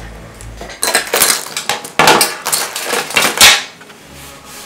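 Metal objects, gold watches and chains among them, clattering and clinking against a glass tabletop as they are handled, in a run of quick bursts for about three seconds, loudest near the end.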